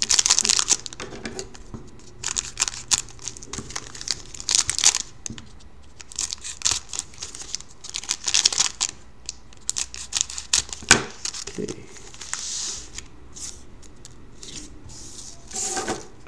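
Foil trading-card pack wrappers crinkling and tearing in short, irregular bursts as the packs are handled and cut open with scissors.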